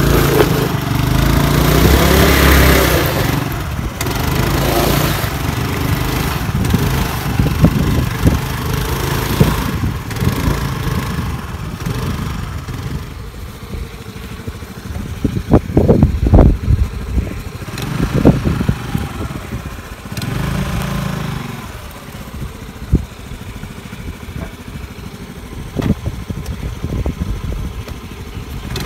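Hero Maestro scooter's small single-cylinder engine revving with its rear wheel stuck in mud, loudest at first, then running lower and uneven. A few sharp loud knocks come around the middle.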